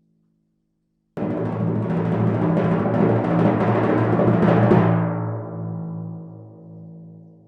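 Timpani roll: rapid strokes start suddenly about a second in and grow louder, then stop near five seconds, leaving the drum's low pitched ring to die away.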